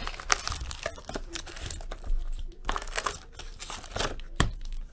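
Foil packs of Panini Prism football cards crinkling and rustling as they are pulled out of their box by hand, with irregular sharp crackles and a tap near the end.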